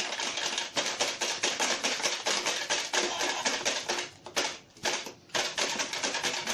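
Rapid plastic clicking and clattering from a toy pinball gumball machine being played, with a couple of brief lulls a little past four seconds in.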